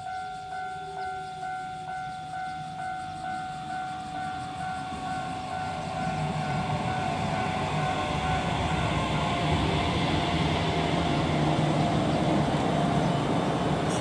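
A station approach alarm that imitates a Japanese level-crossing bell, ringing in an even, repeating ding-ding rhythm to warn that a train is coming. The rumble of an arriving train grows steadily louder and covers the bell by the second half.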